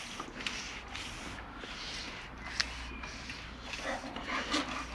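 Faint scattered clicks, small knocks and rustles of movement and handling, over a low steady hum.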